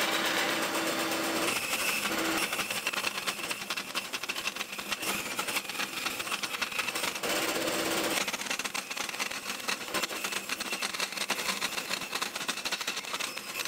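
Vertical bandsaw cutting through a solid aluminium round bar, a steady rasping cut with a fast, dense rattle of the blade teeth.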